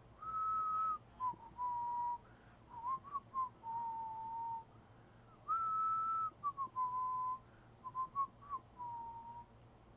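A person whistling a short tune, the same phrase twice. Each phrase opens on a high held note, then drops to a run of lower, shorter notes.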